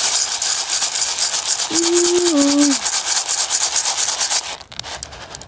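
Dry popcorn kernels being stirred with cooking oil in a container: a fast, even scraping rattle that stops about four and a half seconds in. A short hum of a voice comes about two seconds in.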